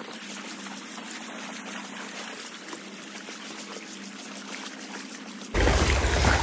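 Shallow creek water running over gravel, a steady muted rushing. About five and a half seconds in it jumps suddenly to a much louder rush with a low rumble of wind on the microphone.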